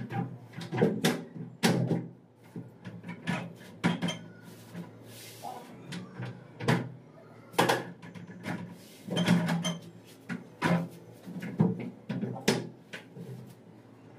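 Irregular knocks, clacks and bumps of a tall plywood wardrobe door being handled and seated into its sliding track, about a dozen sharp ones, with a short scrape about five seconds in.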